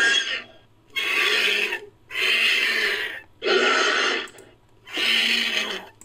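Made-up Pterodactylus creature calls built from vulture noises: about five rasping calls in a row, each a second or less long with short gaps between.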